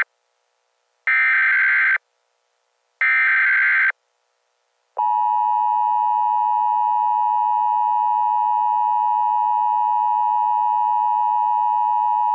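Emergency Alert System SAME header: the last of three one-second bursts of digital data tones, then about five seconds in the steady two-tone EAS attention signal begins and holds.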